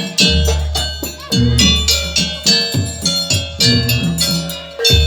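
Traditional Indonesian percussion ensemble music in a gamelan style: quick ringing metallic pitched strikes with drum hits. A deep low note is struck just after the start and again near the end, each ringing on for a second or more.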